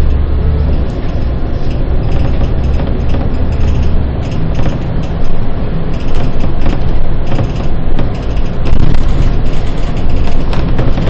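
Bus on the move: a low engine drone under loud road noise, with frequent short rattles and knocks that come more often in the second half.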